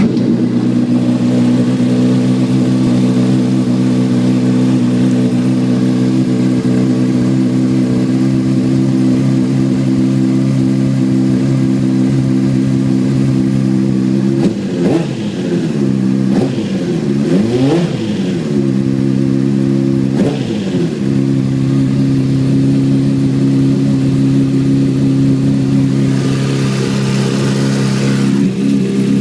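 2006 Honda CBR600RR inline-four engine idling steadily, blipped up and down a few times around the middle. The owner is asking about an unfamiliar noise it has made since the bike slid over in a low-speed spill.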